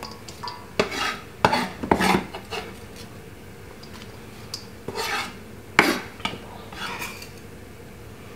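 A knife blade scraping across a wooden chopping board and knocking against a stainless steel bowl as chopped vegetables are pushed into the bowl. It comes as a series of short scrapes and knocks, several seconds apart.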